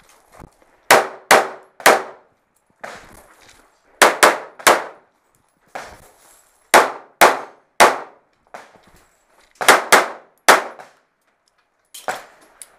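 Pistol fired in four quick strings of three shots each, the strings about three seconds apart, the reports ringing under a sheet-metal roof.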